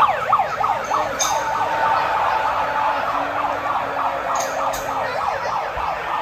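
Handheld megaphone's siren sounding in fast, repeated rising and falling sweeps, sounded to announce a fishing contest.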